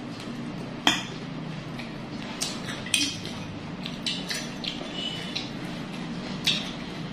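Metal forks and spoons clinking and scraping against ceramic plates of noodles, in scattered sharp clinks, the loudest about a second in.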